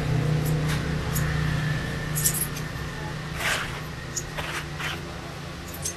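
Small medicine vials being handled on a tabletop: a few faint clicks and short rustles over a steady low hum.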